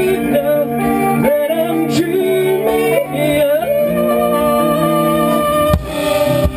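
Rock band playing live in a rehearsal room: a melody line with pitch bends over sustained chords and held bass notes, with drum hits near the end.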